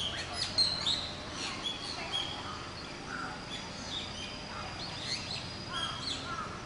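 Birds chirping and calling: many short, quick chirps and pitch sweeps come and go irregularly, over a thin steady high tone.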